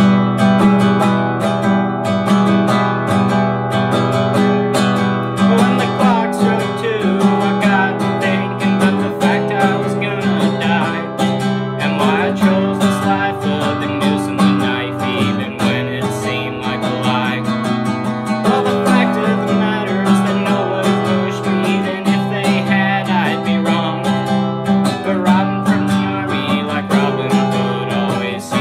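Acoustic guitar strummed in a steady rhythm, with a man's singing voice over it from about five seconds in.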